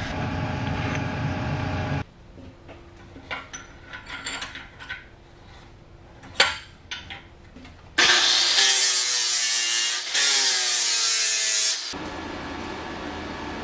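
A drill press boring into a curved steel piece, its motor running under load, stops about two seconds in, followed by light clanks and taps of metal being handled at a bench vise. About eight seconds in, an angle grinder cuts metal loudly in two passes of about two seconds each, its pitch sagging under load.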